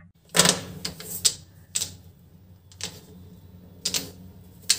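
Plastic brush pens being handled and set down on a sheet of paper: a string of about eight irregular clicks and light taps.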